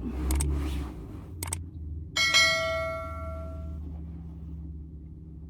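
A single bell-like chime rings out about two seconds in and fades away over about a second and a half, after two short clicks. A low steady hum runs underneath.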